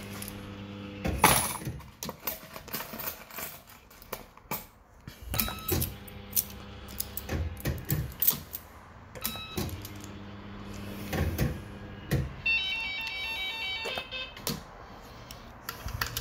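Bell-Fruit Firecracker fruit machine being played: its reels spin with a steady motor hum and clunk to a stop, about three spins in a row, amid many clicks. Shortly before the end the machine plays a fast pulsing electronic beeping.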